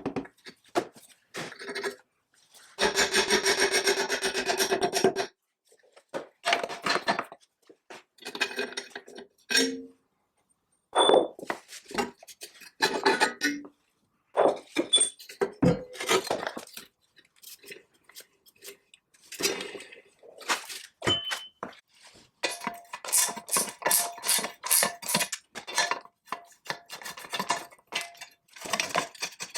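Metal parts and hand tools clinking, knocking and scraping in short separate bursts while an old cast-steel power hammer is taken apart. A few seconds in there is a rapid rattling of about two and a half seconds.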